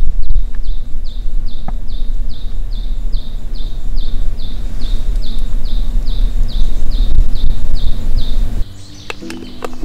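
A bird calling a long, even series of short, high, falling notes, about two and a half a second, which stops near the end. A steady low rumble runs underneath.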